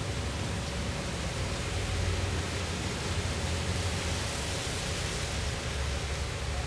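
Steady rushing outdoor ambient noise with a low rumble underneath.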